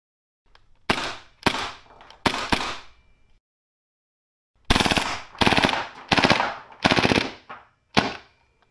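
Vorsk VMP-1X gas-blowback airsoft submachine gun firing, echoing in a concrete room: three separate shots, then, from about halfway, a string of rapid full-auto bursts.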